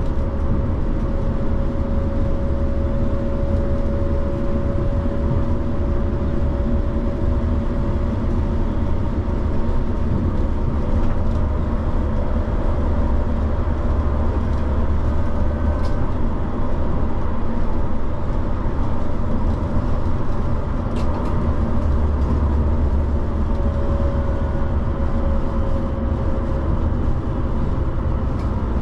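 RandstadRail light-rail tram running between stops: a steady rumble of wheels on the rails, with a faint whining tone early on and again near the end, and a few light clicks.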